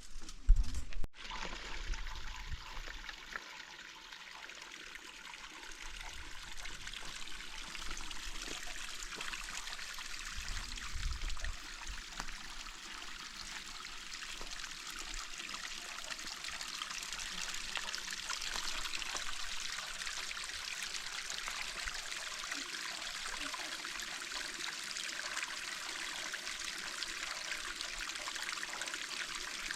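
Water running in a steady trickle, with an abrupt break about a second in.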